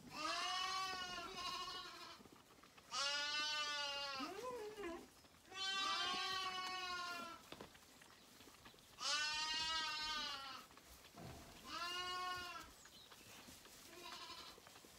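Zwartbles lambs bleating: about six long, wavering bleats of a second or two each, spaced a couple of seconds apart, the last one short and faint.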